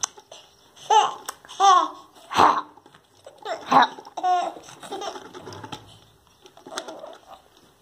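A toddler laughing and squealing in short, high-pitched bursts, about five in the first four and a half seconds, then fainter.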